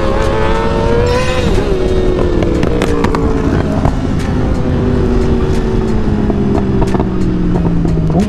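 Yamaha R6's inline-four sportbike engine under way: its pitch climbs for about a second, drops sharply, then sinks slowly as the bike rolls off. Heavy wind rush on the microphone throughout.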